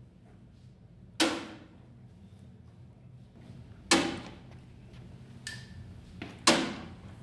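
A tied hank of kasuri yarn is slapped down hard on a wooden board three times, about two and a half seconds apart. This beating loosens the bound yarn so the indigo dye soaks in more easily.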